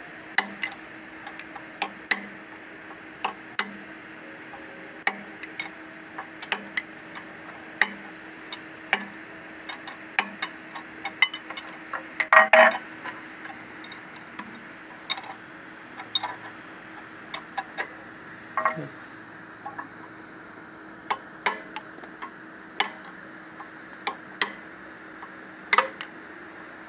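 Hammer tapping on steel at the rear crankshaft hub of a Caterpillar 3412 engine while fitting the rear crankshaft seal: irregular sharp metallic clinks about once a second, with a louder burst of blows about halfway through.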